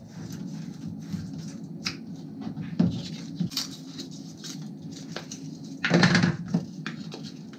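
Craft knife cutting through foam board: a run of small scratchy, squeaky strokes as the blade works a hole through the centre of the disc, with a short louder scrape about six seconds in.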